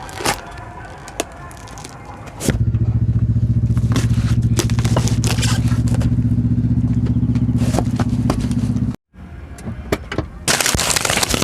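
A few scattered clicks, then a car engine running steadily close by. After a sudden cut, a loud crackling, crunching noise near the end as the tyre crushes something under it.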